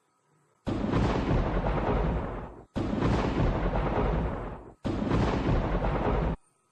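Edited-in sound effect: three loud blasts of noise, each starting and stopping abruptly, the first two about two seconds long and the last about a second and a half.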